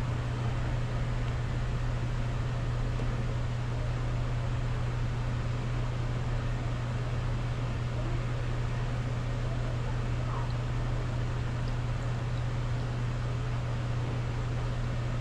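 A steady low hum under an even hiss, unchanging throughout, with no clear source action on top.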